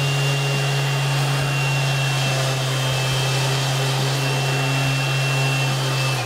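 Parkside PEXS 270 C3 random orbital sander running with its pad pressed against a block of wood: a steady motor hum with a high whine over it. Near the end the whine falls and the sander winds down.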